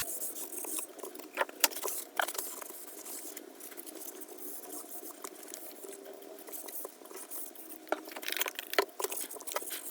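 Light scratching and rubbing on the metal tray of an old Craftsman toolbox as grime is cleaned off, with scattered small clicks and taps.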